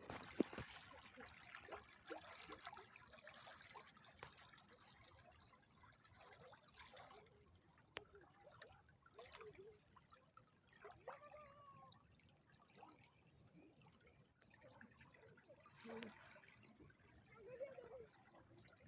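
Faint trickle of water: an even hiss that is stronger for the first several seconds and then quieter, with a few short, faint pitched sounds scattered through.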